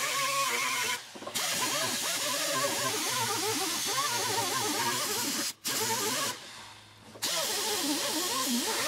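Air-powered wire brush grinding paint and sealer off the steel inner wheel well of a car body, running with a steady hiss, its pitch wavering as the brush bites. It stops briefly about a second in, and twice more in the second half.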